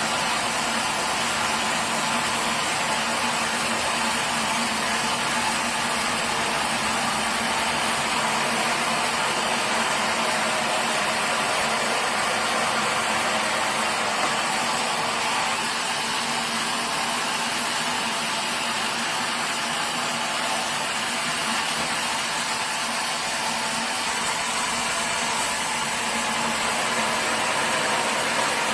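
Sawmill machinery running steadily: a dense, even noise with a constant hum, easing off slightly for a few seconds past the middle.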